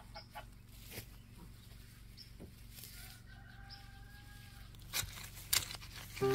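Chickens clucking, with one drawn-out call about three seconds in, over scattered thumps and rustles of a wooden-handled tool digging weeds out of the soil; the two sharpest knocks come near the end.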